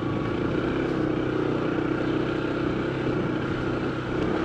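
Honda ADV 160 scooter's single-cylinder engine running steadily at cruising speed, heard on board, with a steady rush of road noise.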